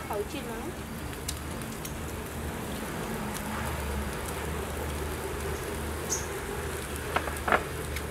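Steady outdoor background hiss with a low hum, and a few light clicks of spoons against plates while people eat.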